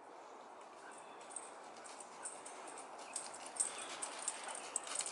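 A dog running through dry fallen leaves, its paws crunching and rustling, the footfalls getting louder in the second half as it comes closer.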